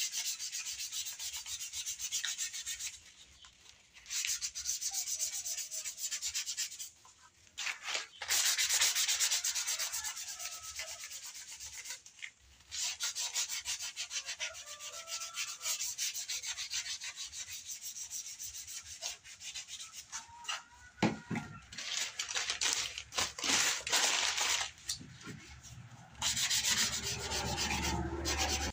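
Rolled-up newspaper rubbed in quick back-and-forth strokes over the scales of a fish form, a papery scratching hiss in stretches with brief pauses; the rubbing transfers the newsprint ink onto the scales for an antiquing effect.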